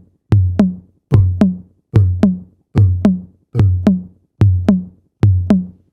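A heartbeat imitated on a drum kit: a dull, low bass-drum boom, struck in quick pairs about seven times at roughly 70 beats a minute. It stands for the first heart sound (S1).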